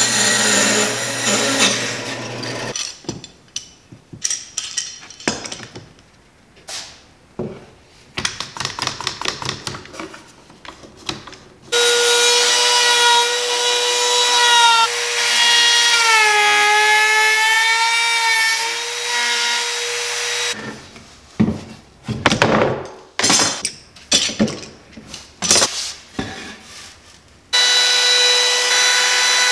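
A bandsaw runs, cutting a plywood drawer front, for the first couple of seconds. After a stretch of short irregular knocks, a Bosch Colt palm router runs with a steady high whine, its pitch dipping under load as it cuts a handle notch into a birch plywood drawer front. It stops, more knocks follow, and it starts again near the end.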